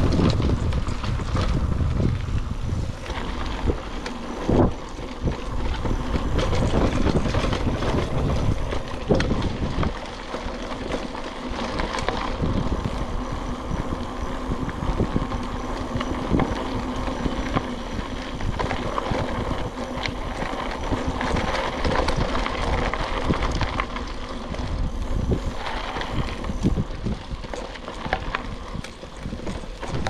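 Mountain bike rolling along a dirt trail: steady tyre and riding noise with frequent knocks and rattles from the bike over bumps, and wind rumbling on the microphone.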